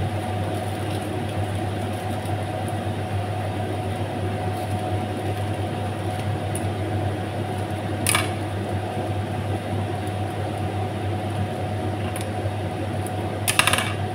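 Steady low mechanical hum. About eight seconds in, kitchen scissors snip once through a seasoning sachet, and near the end a plastic sachet crackles briefly as it is torn open.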